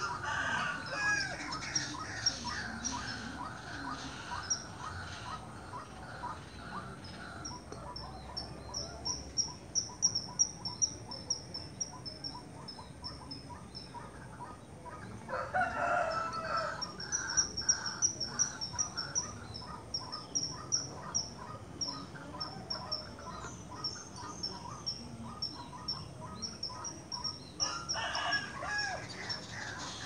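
Birds calling from trees: long runs of rapid, high, thin notes over a steady series of lower chirps. A rooster crows about halfway through and again near the end.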